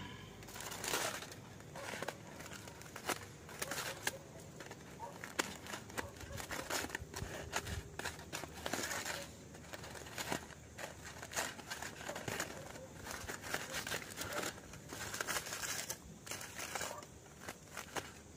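Aluminium foil and a clear plastic bag crinkling and tearing in irregular bursts as a foil packet is unwrapped by hand.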